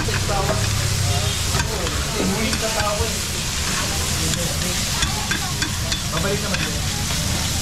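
Meat sizzling and frying on hot cast-iron sizzling plates over open gas flames, a steady dense hiss. Short metallic clicks come through it as metal tongs knock against the plates.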